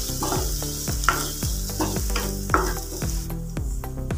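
Wooden spatula stirring sliced onions and ginger-garlic paste frying in oil in a non-stick kadai: a steady sizzle with repeated scraping strokes against the pan, about two a second. They are being sautéed until the raw smell of the ginger-garlic goes. The high sizzle cuts off sharply a little past three seconds in.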